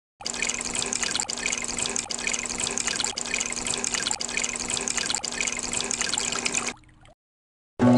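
Heavy rain falling, a dense, even hiss with a steady low hum underneath, which cuts off abruptly near the end.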